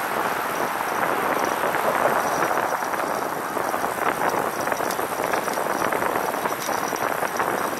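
Bicycle tyres rolling over a bumpy wooden plank boardwalk, a steady clatter made up of many small rapid knocks.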